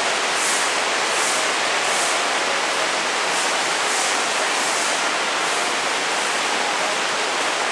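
Steady, loud hiss of heavy rain, with soft regular scuffs of footsteps at walking pace.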